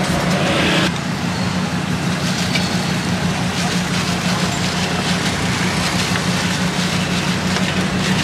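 A steady low mechanical hum, like an engine or motor running, over a haze of street noise.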